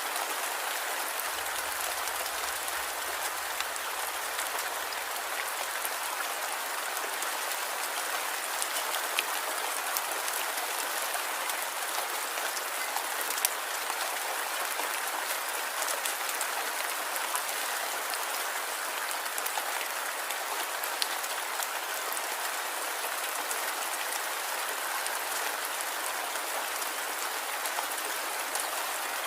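Light rain falling steadily, a continuous patter with scattered individual drops ticking.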